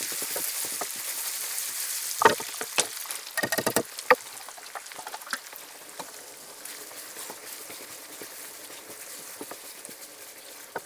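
Frying pan of browned minced meat sizzling loudly as canned tomatoes and cream go in. The hiss starts suddenly and slowly dies down, with a few sharp knocks and clatters about two to four seconds in and a wooden spatula stirring later.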